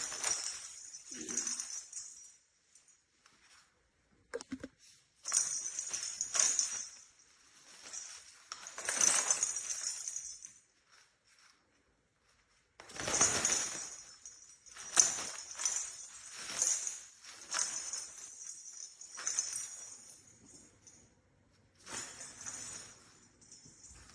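A small bell jingling in irregular shaken bursts of a second or two each, with short breaks of silence between them.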